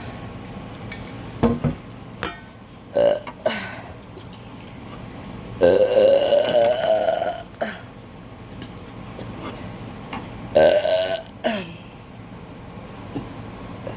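A person burping on purpose, several times: a few short burps in the first few seconds, a long loud one of about two seconds near the middle that rises slightly in pitch, and another burp a few seconds before the end.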